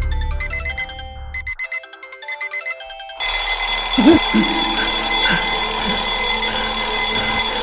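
Soft music fades out, and about three seconds in a twin-bell alarm clock starts ringing, a continuous dense metallic jangle.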